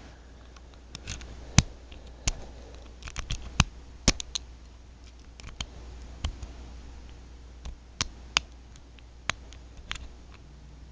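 Metal lock pick clicking against the pins of a Brinks R70 disc padlock as it is single-pin picked: irregular sharp clicks, sometimes two or three close together, a dozen or more in all.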